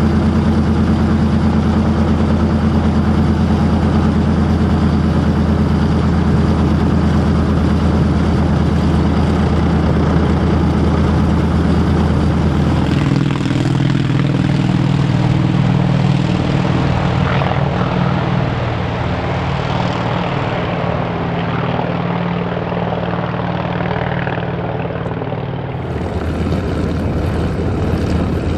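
Douglas DC-3's radial piston engines running steadily with propellers turning. About halfway through it changes to a North American T-28 Trojan's radial engine running as the aircraft taxis, and near the end to the T-28's engine as it flies low overhead.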